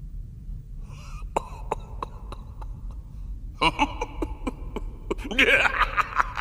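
Guttural vocal sounds from a horned anime demon: a run of short clicking grunts about four a second, faster and louder from a little past halfway, turning into a rasping growl near the end.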